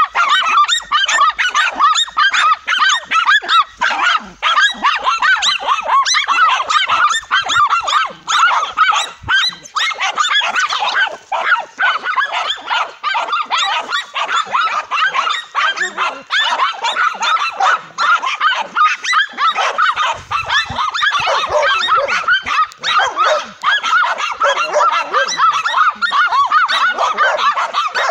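Several dogs barking and yelping frantically over one another in a rapid, unbroken chorus as they attack a tegu lizard.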